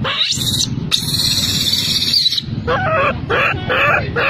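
Baby macaque screaming: a shrill rising squeal, then a longer high-pitched scream of about a second and a half, followed by short whimpering cries, about three a second.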